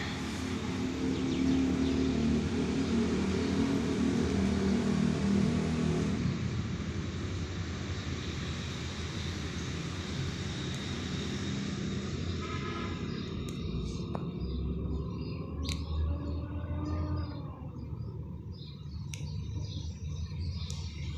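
Outdoor background noise: a steady low rumble, fuller for the first few seconds, with a few short high chirps in the second half.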